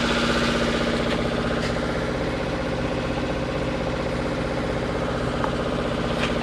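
Boat engine running steadily under way, an even drone with a fast regular pulse.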